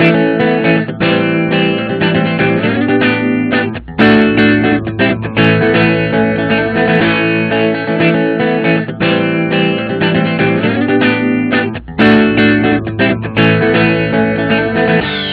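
Guitar music played on plucked and strummed strings, with phrases starting about every four seconds. Near the end a falling pitch sweep begins.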